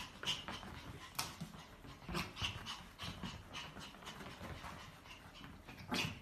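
A Pomeranian panting during rough play with a kitten, with irregular short scuffs of paws on a rug.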